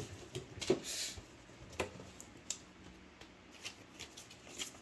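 Cardboard smoke alarm box and its packaging being handled and flattened: light rustling and scattered small clicks, busiest in the first second and sparser after.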